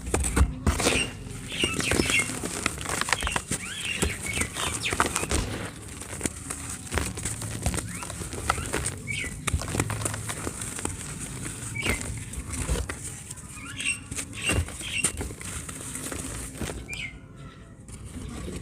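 Dry cement chunks crumbling and breaking apart: a continuous, irregular run of small cracks, crunches and gritty crackling.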